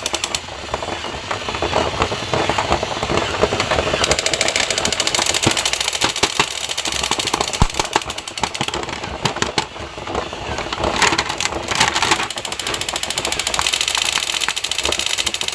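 Plastic toy packaging crinkling, with plastic action figures clicking and clattering as they are handled: a dense, irregular crackle.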